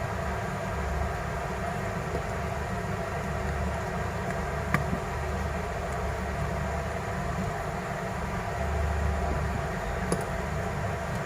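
Steady machine hum, like a fan or blower running, with a slowly pulsing low drone. Two faint clicks, about halfway through and near the end.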